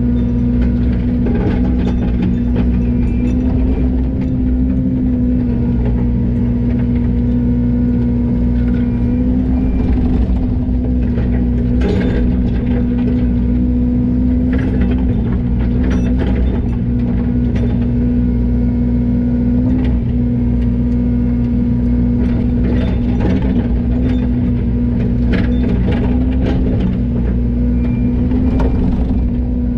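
Yanmar ViO80 mini excavator's diesel engine running at a steady working speed, with scattered clanks and knocks of the machine at work.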